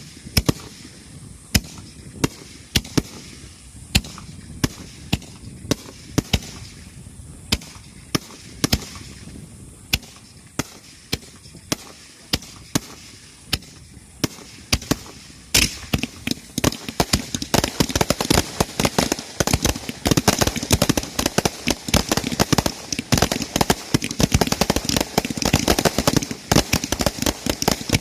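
Starmine fireworks barrage heard from the firing crew's position: separate sharp bangs once or twice a second, then, about halfway through, a dense rapid volley of launches and bursts that keeps going.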